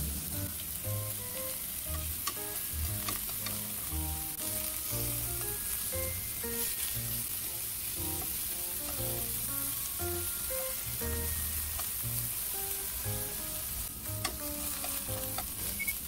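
Torn maitake mushrooms sizzling in sesame oil in a hot frying pan, a steady hiss as they brown, with occasional light clicks as the pieces are turned with chopsticks.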